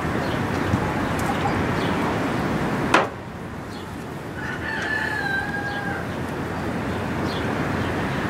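A rooster crowing once in the background, one long drawn-out crow a little past halfway. A single sharp click comes just before it.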